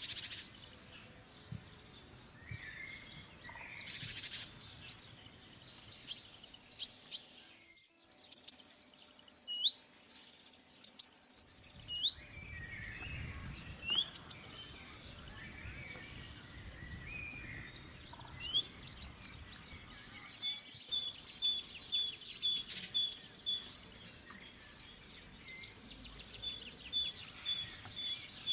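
Blue tit singing: short songs repeated every few seconds, each one or two high thin notes falling into a fast trill. Fainter, quieter calls come between the songs.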